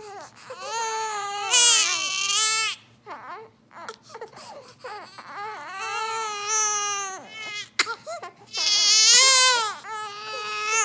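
Infant crying in several long, high-pitched wails with short breaks between them. The mother takes the fussing as the babies wanting a nap.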